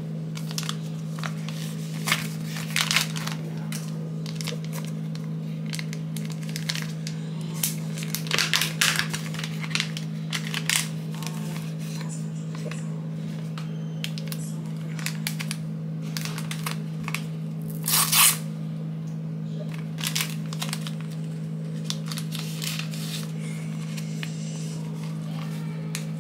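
Crinkling and rustling, like plastic packaging being handled, with scattered clicks, over a steady low hum.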